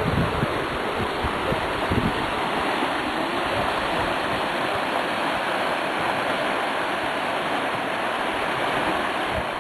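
The Azusa River, a shallow mountain river, flowing with a steady rush of water, with a few low bumps in the first two seconds.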